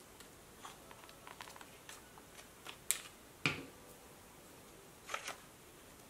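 Journaling supplies handled over a paper journal: a glue stick and metal tweezers make scattered light clicks and taps. A sharp click comes about three seconds in, a heavier knock follows just after, and a short cluster of clicks comes near the end.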